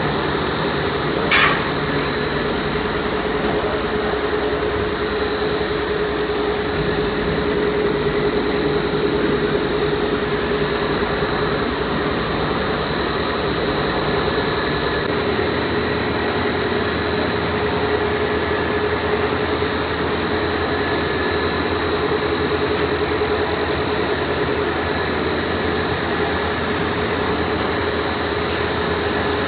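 Factory machinery of a uPVC pipe production line running steadily, with a constant high whine over a hum. A single sharp clack sounds about a second in.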